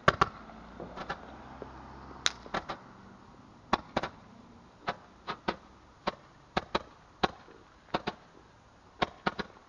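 Firework popping off: sharp cracks at an uneven pace, about two a second, as it throws sparks into the air.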